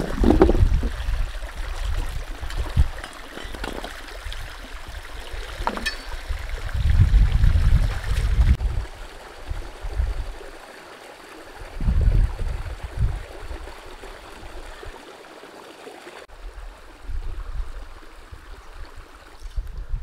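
Shallow stream running and trickling over rocks, with heavy low rumbles that come and go. There are a couple of short sharp sounds in the first six seconds.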